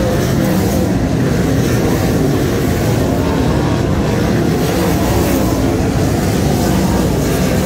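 Sprintcar V8 engines running loud and steady on a dirt track, their pitch wavering up and down as the cars race.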